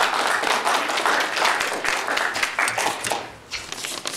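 Audience clapping, a dense patter of many hands that dies away about three and a half seconds in.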